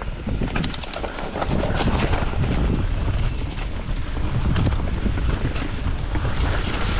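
Wind buffeting the microphone over the rumble of mountain-bike tyres rolling on a rocky dirt trail, with scattered clicks and rattles from the bike.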